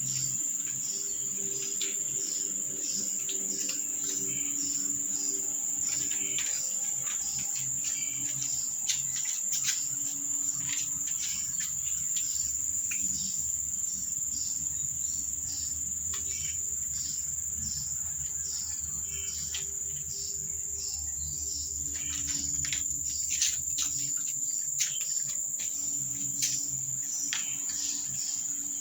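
Steady high-pitched insect trill, with scattered sharp clicks and soft low held notes of background music beneath.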